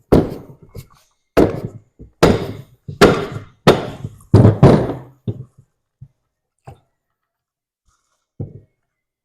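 A run of heavy knocks, about seven in the first five seconds at roughly one every 0.7 s, followed by a few lighter, more widely spaced taps.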